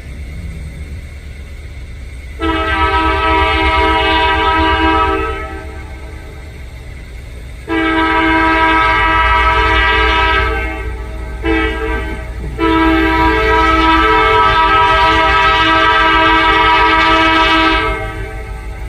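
Diesel locomotive air horn sounding a chord in the crossing pattern: two long blasts, a short one, then a longer final blast. Beneath it, a steady low rumble from the locomotive.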